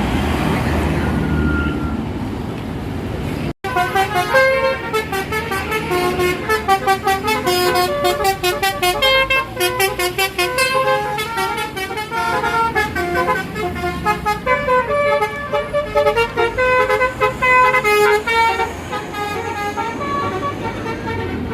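About three and a half seconds of bus engine and traffic noise, then, after a brief cut, a bus's basuri horn, a multi-tone musical air horn, plays a quick melody of short notes.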